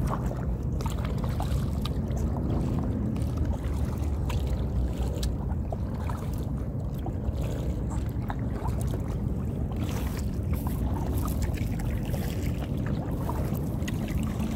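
Kayak paddling: small splashes and drips of water from the paddle and lapping at the hull, many light ticks scattered over a steady low rumble.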